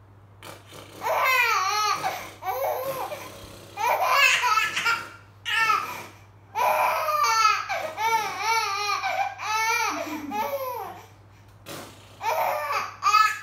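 A baby laughing in bouts: five or so runs of high-pitched, quickly wavering laughter with short pauses between them.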